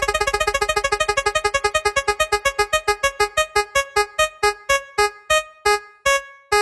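A synthesized keyboard-like note repeated rapidly, slowing down steadily until only a few widely spaced notes remain near the end, like a spinning-wheel or countdown sound effect.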